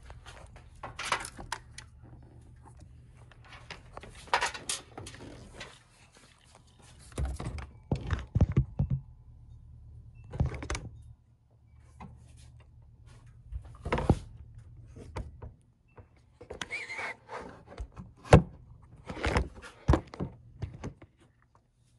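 Irregular thunks, clicks and clatters of hands working on the 2009 Honda Accord's plastic engine air filter housing, with a low steady hum underneath.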